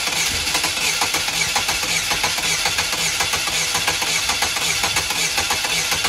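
Starter cranking the 2008 Chevrolet Cobalt's 2.2-litre Ecotec four-cylinder with the throttle floored in clear-flood mode, so it turns over steadily without firing. The cranking rhythm is off, the sign of a cylinder with low compression: cylinder two has none, through a leaking exhaust valve.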